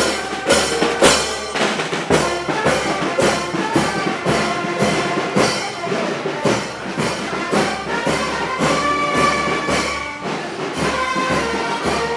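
Orchestral background music with brass and a steady percussive beat.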